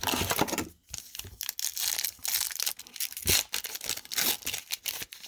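Plastic wrapper of a hockey card pack being crinkled and torn open by hand, a run of irregular crackles and rips.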